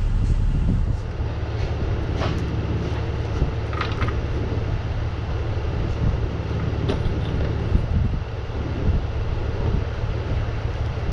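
A steady low mechanical rumble, like an engine running, with a few light metallic clinks, about two and four seconds in.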